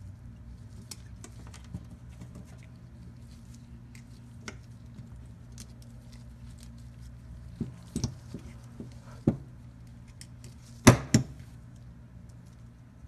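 Small metallic clicks and taps as a pick works the little springs out of a starter motor's overrunning clutch drive, with a few sharper clicks in the second half and the loudest pair near the end. A steady low hum runs underneath.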